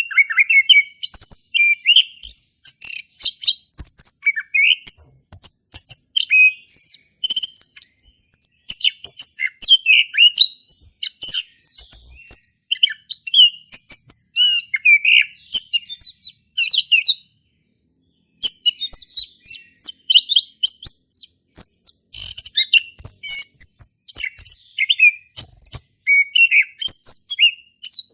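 Male chestnut-capped thrush (anis kembang) singing a long, rapid, varied song of high whistles and chirps, in the full continuous style called ngeplong. The song pauses for about a second about two-thirds of the way through.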